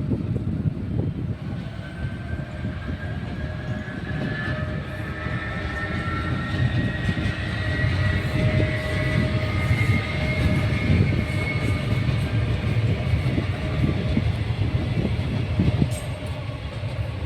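Electric commuter train of Rodalies de Catalunya running on the line, a steady heavy rumble of wheels and running gear with a motor whine that rises slowly in pitch over most of the stretch.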